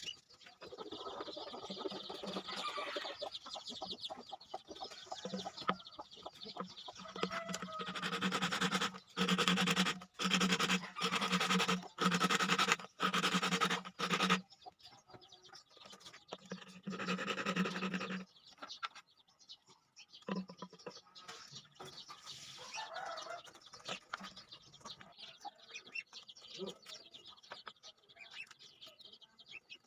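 Chickens clucking. Near the middle comes a run of about six louder noisy bursts, each under a second, then one more a little later.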